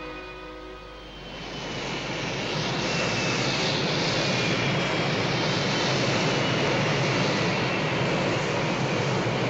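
Eagle transporter's thrusters as it descends to land: a steady, jet-like rushing hiss that swells in over about a second, with a faint falling whine on top. A string passage fades out at the very start.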